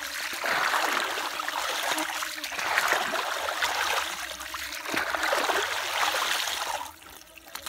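Muddy water splashing and dribbling out through a plastic mesh basket as it is scooped through wet mud and lifted, three times, each spell a second or two long, then quieter near the end.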